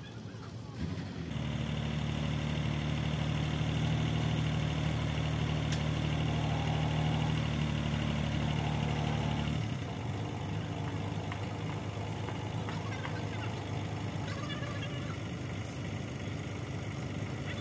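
Heavy truck diesel engine running: it comes up to a higher, steady speed about a second in, holds there, then drops back to a lower running level near ten seconds in.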